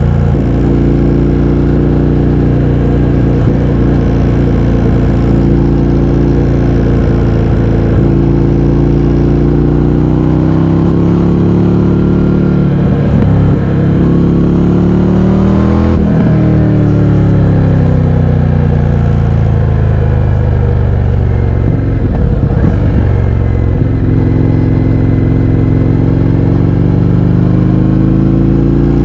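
Indian FTR 1200 V-twin motorcycle engine through a baffle-less Akrapovič exhaust, under way: the engine note climbs and drops repeatedly as the bike accelerates, changes gear and slows, with a long fall in pitch in the middle and a climb again near the end.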